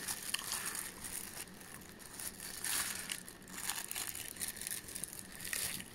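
Clear plastic wrapping crinkling and a padded nylon binocular case rustling as binoculars are handled and pulled out, in irregular bursts.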